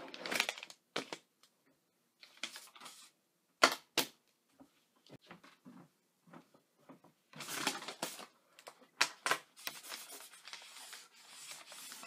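Creased sheets of paper being unfolded and smoothed flat on a wooden desk, rustling and crinkling in irregular bursts with a few sharp crackles. The sharpest crackle comes about four seconds in.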